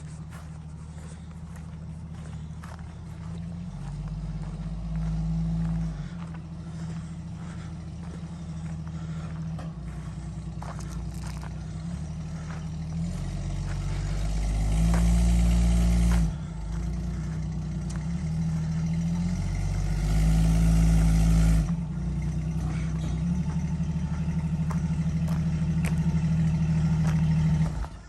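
1975 AM General DJ5-D Postal Jeep engine running. It is revved up several times, with louder stretches about 5, 15 and 21 seconds in, and it cuts off suddenly at the very end.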